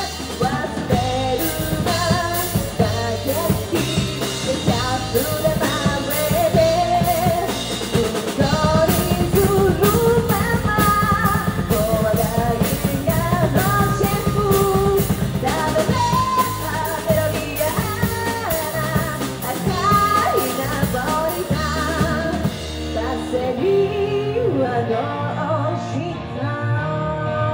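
Live rock band playing an anime theme song cover: a woman sings lead over electric guitars, electric bass and a drum kit. Near the end the drums drop out and the band rings out on a held chord.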